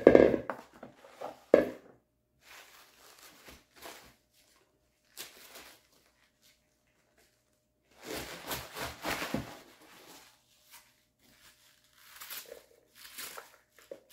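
Kitchen food-prep handling noises: a few knocks and thuds at the start, then scattered short rustling and scraping sounds, busiest from about eight to nine and a half seconds in.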